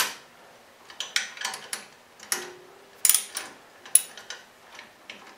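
Hand socket ratchet working a bolt on a highway-peg clamp on a chrome engine guard: scattered metallic clicks and clinks in short clusters, with a brief ringing tone about two and a half seconds in.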